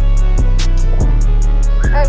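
Music with a heavy, sustained bass and a steady drum beat.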